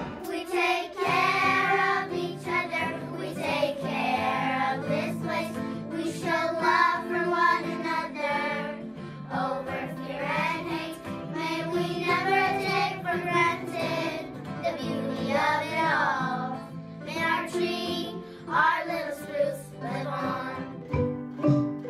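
A class of schoolchildren singing a song together over instrumental backing.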